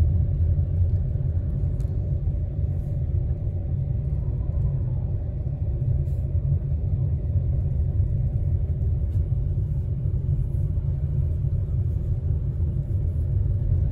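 Steady low rumble of a car driving on a paved street, heard from inside the cabin: engine and road noise.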